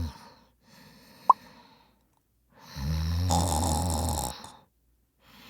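A person snoring: one long snore of about two seconds, starting near the middle. Before it, about a second in, comes a single sharp click with a brief rising squeak.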